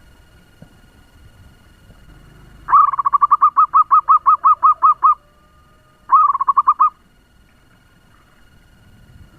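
Zebra dove calling fast: a rapid run of about fifteen short repeated notes, about six a second, then after a pause a shorter burst of about six more.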